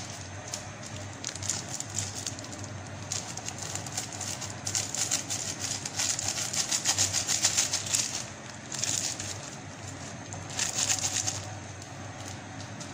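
Crackling and fizzing in bursts from a pot of instant noodles on a gas stove, loudest about six to eight seconds in, over a steady low hum.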